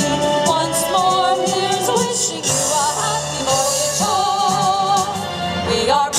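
Vocal trio singing in harmony over instrumental backing, with vibrato on the held notes, as part of a medley of US armed forces service songs.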